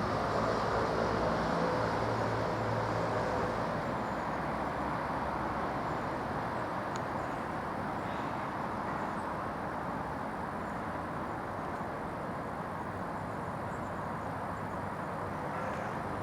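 Diesel locomotive engine running, its pitched drone plain for the first few seconds and then fading into a steady rumble.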